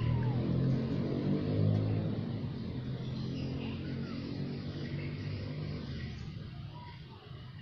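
A motor vehicle's engine running nearby, its low hum fading away over the few seconds. A few faint kitten mews sound over it, at the start, about halfway and near the end.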